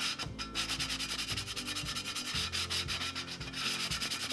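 Sanding sponge rubbed in rapid, even back-and-forth strokes over the milk-painted top of a perforated metal utensil caddy, distressing the paint down toward the black undercoat and bare metal.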